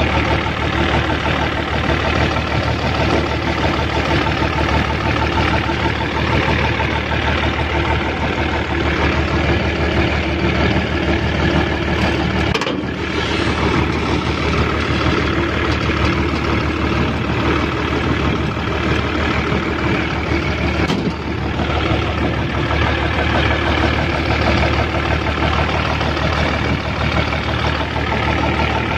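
Combine harvester's six-cylinder turbocharged Mercedes diesel engine running steadily at close range, with two brief breaks in the sound.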